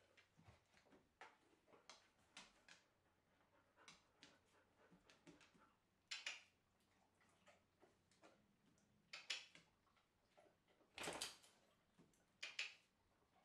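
Quiet, irregular clicks and smacks from a dog's mouth nosing at a nylon head halter held to its muzzle, with a few louder short bursts.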